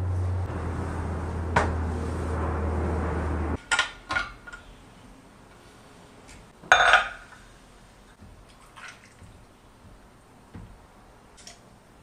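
A steady low hum with a rushing noise stops suddenly about three and a half seconds in. Then come a few sharp clinks of glass and metal, the loudest about seven seconds in, as the small glass measuring jug is set onto the ROK lever espresso machine's metal base.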